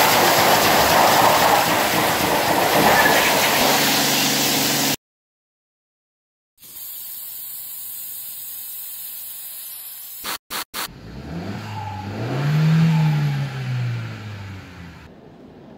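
Water spraying hard onto a car's bodywork, then after a short silence a hand pump sprayer hissing onto a wheel, a few quick clicks, and a Mercedes-Benz E 350's engine revving up once and dropping back.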